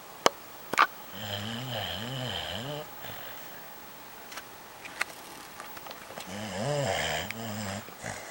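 A sleeping dog snoring: two long snores about five seconds apart, each a drawn-out breath whose pitch wavers up and down. Two sharp clicks near the start, the second the loudest sound.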